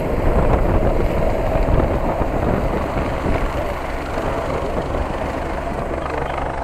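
Helicopter flying low overhead, a steady rotor and engine noise.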